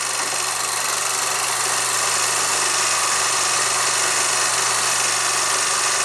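Steady hiss with a low, even hum from the playback of an old film: the noise of the projector and its worn soundtrack between lines of narration.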